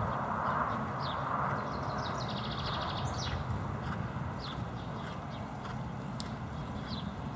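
Hoofbeats of a bay horse cantering on grass, under birds chirping: short falling chirps throughout and a brief rapid trill about two and a half seconds in.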